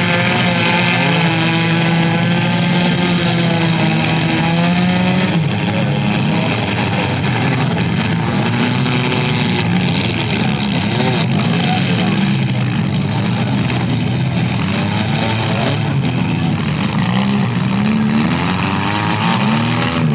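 Several compact cars' engines running and revving at once, their pitches rising and falling as they are throttled up and down throughout.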